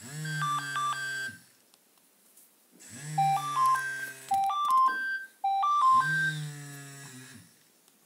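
Nokia 6600 mobile phone previewing its built-in alarm tones through its loudspeaker, each over a low buzz. First comes a short burst of high electronic beeps ("Alarm high"). About a second and a half later a longer pattern of stepping beeps begins ("Alarm urgent"), breaks off and starts again.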